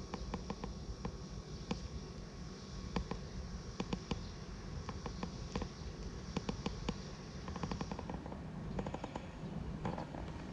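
Ultralight spinning reel being cranked to retrieve a lure, with clusters of sharp clicks and a faint steady high whine that stops about eight seconds in, over a low steady rumble.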